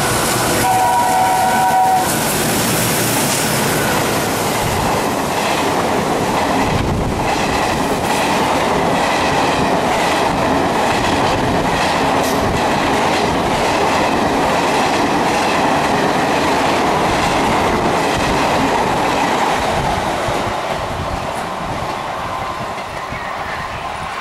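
WDM-2 diesel locomotive's horn sounding several tones at once, cutting off about two seconds in. The express then passes at high speed, its wheels clattering over the rail joints in a steady rhythm, and the sound fades near the end as the train draws away.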